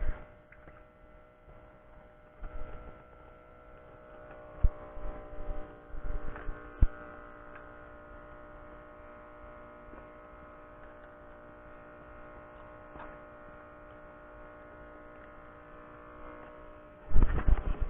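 A steady hum of several held tones, with a few sharp knocks about four and a half and seven seconds in.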